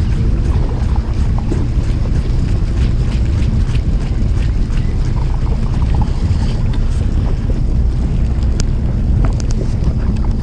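Steady low wind rumble buffeting the microphone aboard a boat at sea, with scattered faint clicks from a baitcasting reel being wound in and handled.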